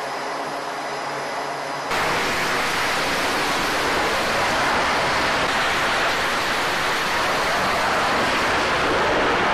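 F/A-18 Super Hornet jet engines on a carrier flight deck. First a steady whine with several fixed tones, then, with a sudden jump about two seconds in, a louder steady jet roar as a Super Hornet runs at full power for a catapult launch.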